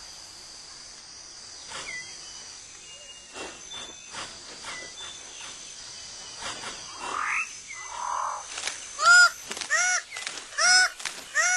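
Rainforest ambience with scattered small chirps and clicks, then a bird of paradise starts a series of loud, repeated honking calls about nine seconds in, roughly one every three-quarters of a second.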